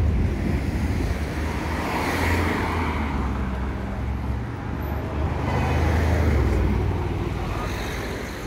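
Road traffic noise: a steady low rumble, with vehicles passing about two seconds in and again, louder, around six seconds.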